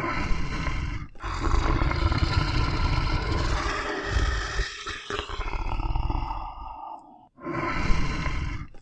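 Lion roaring and growling: several long, rough roars in a row, with a short pause before a final roar near the end.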